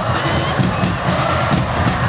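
Music with a steady drum beat, mixed with the noise of a large football crowd.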